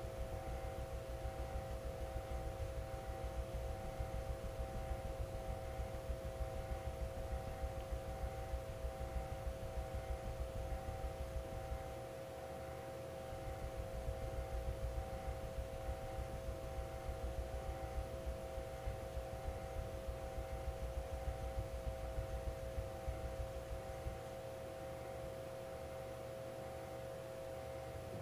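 Carbon-steel yanagiba blade stroked back and forth on a wet waterstone in quick, regular sharpening strokes, with a steady multi-tone hum underneath. The strokes pause briefly about 12 seconds in and stop about 24 seconds in, leaving only the hum.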